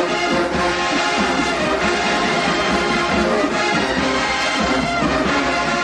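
HBCU marching band playing a stand tune, loud brass with trombones and trumpets over a steady beat.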